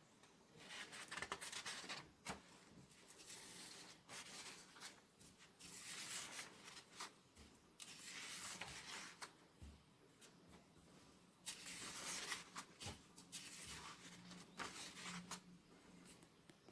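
Rustling and crinkling from handling comic books and their paper or plastic packaging by hand. It comes in about six short bursts with scattered clicks, between quiet gaps.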